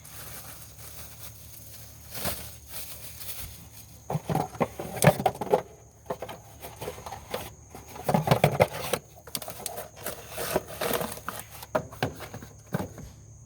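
An old ignition coil being handled and packed into its box: rustling and scraping of packaging with a run of clicks and knocks, busiest around four to six seconds in and again around eight to nine seconds in.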